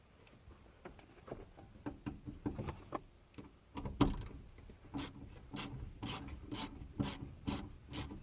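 Hand ratchet clicking as small bolts are loosened: scattered clicks at first, a knock about four seconds in, then steady strokes about two a second.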